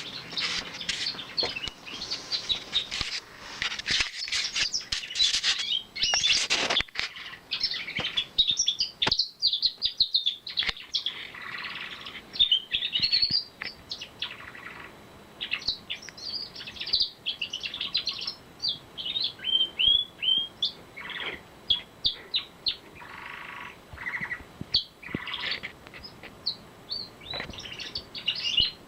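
Male pet canary singing: rapid trills and warbling phrases, dense at first and then broken into shorter phrases with some falling whistled notes. It is his springtime song, aimed at the birds outside.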